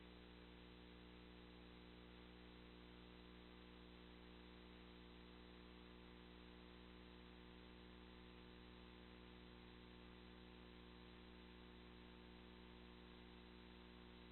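Near silence: a steady, unchanging hum with faint hiss.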